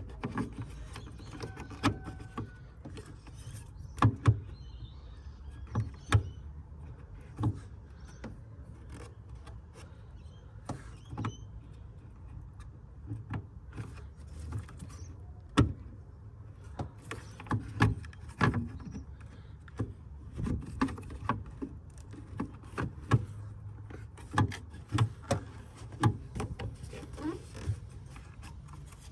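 Irregular sharp clicks, knocks and scrapes of hard plastic as the rear cover and bulb mount of a VW Touareg headlight housing are pressed and pried by hand, trying to pop the retaining tabs free. A steady low hum runs underneath.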